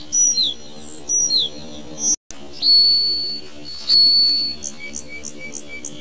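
Background music with a soft steady drone under it and high, thin whistled notes on top: two short notes gliding downward in the first second and a half, then two long steady whistles around three and four seconds in. The sound cuts out completely for a moment just after two seconds.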